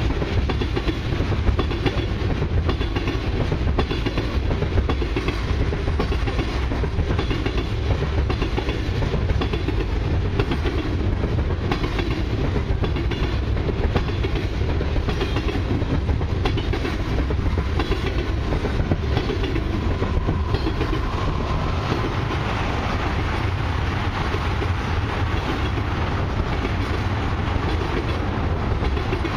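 Loaded freight tank cars rolling steadily past, a constant heavy rumble of steel wheels on rail with the clickety-clack of wheels over the rail joints. A higher hiss grows in about two-thirds of the way through.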